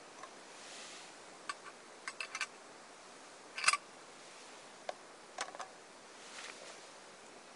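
A cooking utensil clicking and tapping against a frying pan of pancake batter on a Trangia alcohol stove. There are a handful of light, separate clicks, some in quick little clusters, with the sharpest one about halfway through.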